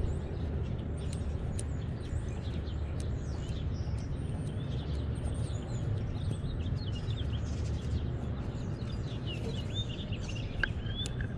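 Small birds chirping and twittering over a steady low background rumble, with a cluster of chirps near the end.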